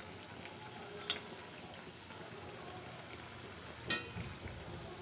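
Bread potato rolls deep-frying in hot oil in a kadai, a steady sizzle. A metal ladle clinks against the pan about a second in, and again more loudly with a brief ring near four seconds in as it goes in to turn the rolls.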